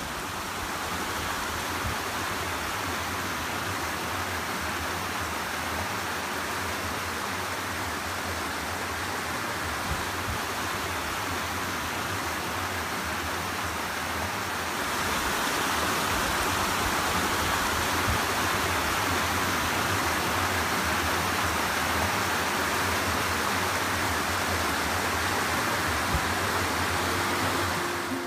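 Steady rush of a mountain creek cascading over rocks, growing louder about halfway through.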